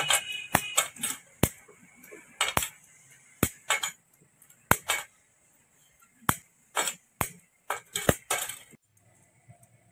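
Hand metal snips clipping the lugs off a stack of lead-acid battery plates: about twenty sharp metallic clicks and clinks at uneven intervals, with short pauses.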